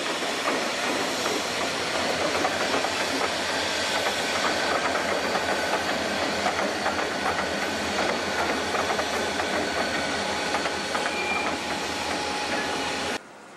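A pair of Conrail diesel locomotives rolling past, a steady mix of engine noise and wheels clicking over rail joints. The sound cuts off abruptly near the end.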